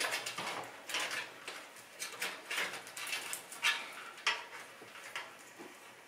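Power-supply cables being handled and pulled through a metal PC case, their cables and plug ends rustling, clicking and knocking against the frame in irregular clatters, several a second.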